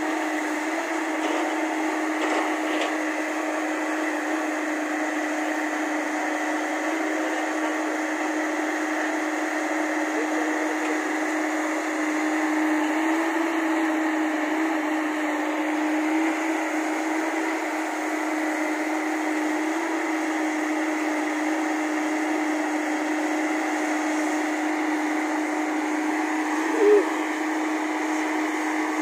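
JCB crawler excavator's diesel engine running steadily under load as it digs and swings soil into a tipper truck, a constant drone that wavers slightly in pitch. Near the end there is a short, louder tonal sound.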